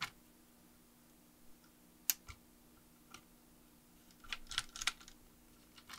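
Small sharp clicks and taps of jumper wires being pushed into breadboard holes and development-board header pins: one distinct click about two seconds in and a quick run of small clicks near the end.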